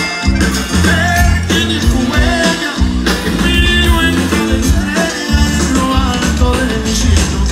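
Live norteño band playing: button accordion, guitars, electric bass and drums, with a steady bass line under the melody.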